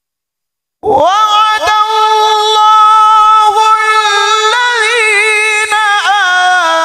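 A male Qur'an reciter chanting one long, high melismatic note into a microphone. It starts suddenly about a second in after silence, carries quick ornamental turns in the middle and steps down in pitch near the end.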